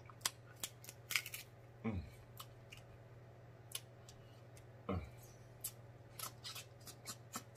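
Crab-leg shell clicking and snapping as it is picked apart by hand, a string of small sharp clicks at an uneven pace, with two brief mouth sounds of eating about two and five seconds in, over a faint low hum.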